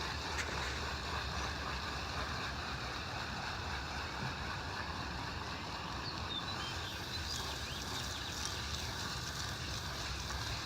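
Garden hose spraying water onto the condensing unit's coil fins, rinsing off the coil cleaner: a steady hiss of water.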